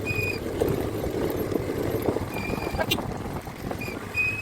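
A vehicle driving along a road: a steady low rumble of engine and road noise, with a few short high-pitched chirps now and then.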